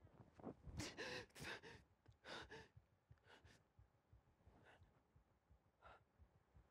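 A man's faint breathy gasps and sighs. There is a quick cluster of short breaths in the first few seconds, then a few fainter single breaths spaced out.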